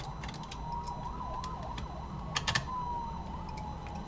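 A small screwdriver backing a tiny screw out of a Walkman's plastic case: a faint, thin creaking squeal that wavers up and down in pitch, with scattered light clicks and a short cluster of clicks about two and a half seconds in.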